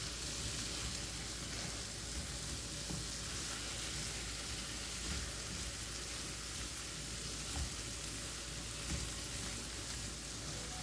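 Chicken drumsticks and dry spice masala sizzling steadily in oil in a nonstick kadai, stirred with a spatula, with a couple of soft knocks as it scrapes the pan. The dry spices are being roasted before water goes in.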